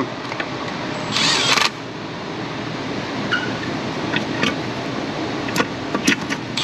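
Milwaukee cordless power tool running exhaust manifold bolts into the cylinder head, a steady run with a louder burst about a second in and a few clicks.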